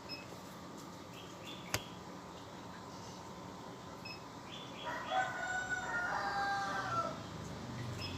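A rooster crowing once, about five seconds in, a single call of about two seconds that drops in pitch at the end. A sharp click is heard earlier.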